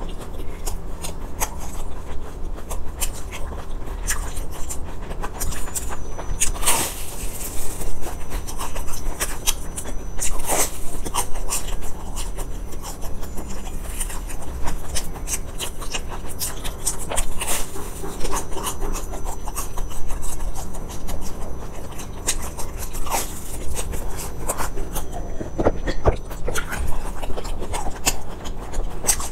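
Close-miked chewing of a crisp fried sesame ball: the crust crackles and crunches in many small snaps, with a few louder crunches about seven and ten seconds in.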